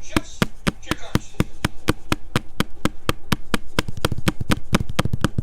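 Rapid, even clicking or tapping, about seven or eight sharp clicks a second, with faint speech underneath.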